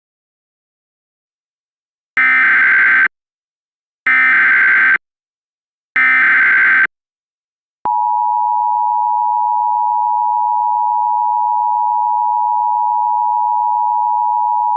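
Emergency Alert System alert opening: three SAME header data bursts, harsh digital buzzes of about a second each spaced about two seconds apart. About eight seconds in, the steady two-tone EAS attention signal begins and keeps sounding. Together they mark the start of a flash flood warning broadcast.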